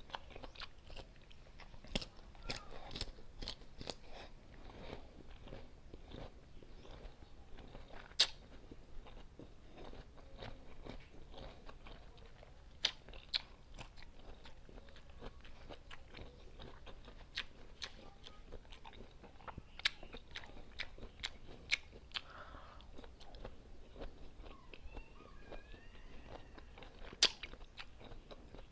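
Close-up crunching and chewing of raw green mango: crisp crunches of the firm unripe flesh scattered throughout, with softer chewing between them and a few louder snapping bites.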